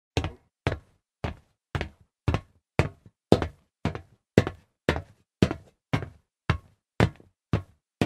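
Footsteps on solid metal at an even walking pace of about two steps a second, each step a sharp impact with a short ring-out.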